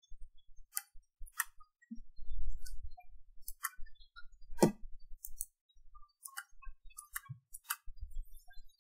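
Computer mouse button clicks, a dozen or so at irregular intervals, with a short low rumble about two to three seconds in.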